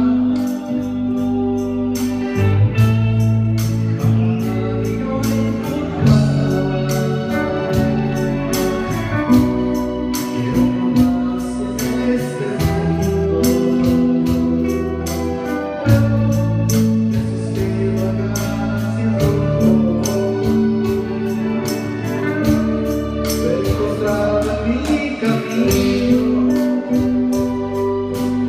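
A live band playing: electric bass and a drum kit keeping a steady beat under long held chords.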